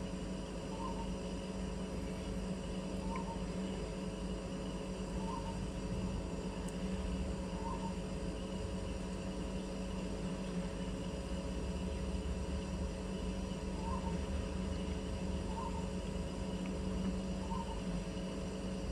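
Compressor of a Kings 75-litre dual-zone portable fridge running at full draw just after start-up, a steady hum. A short faint chirp repeats every two seconds or so.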